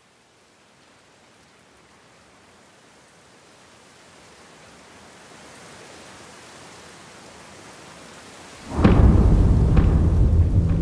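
Dramatic soundtrack sound design: a soft rain-like hiss swells slowly, then a sudden deep boom about nine seconds in opens into a loud, low rumbling drone, with a couple of sharp hits.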